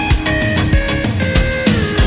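Loud, heavy background music with a steady beat of about two low drum hits a second under held melody notes, one of which slides down in pitch near the end.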